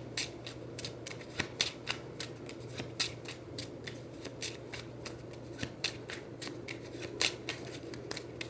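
A deck of tarot cards being shuffled by hand: an irregular run of soft flicks and slaps of cards against each other.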